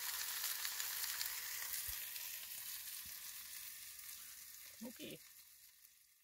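Burger patties sizzling in a frying pan on a portable gas stove, an even hiss that slowly fades out.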